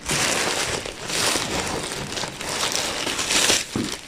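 Packaging crinkling and rustling as it is handled, swelling and easing several times.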